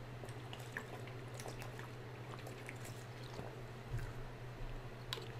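Quiet room tone with a steady low electrical hum and scattered faint ticks, with a soft knock about four seconds in.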